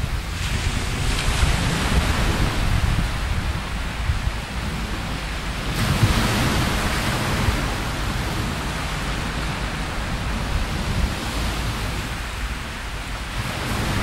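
Wind buffeting the microphone with a low rumble, over the steady hiss of small waves breaking on the beach; the noise swells about six seconds in.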